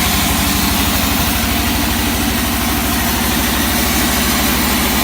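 Sawmill's engine running steadily at an even, idle-like pace, with a constant hiss above its low pulsing.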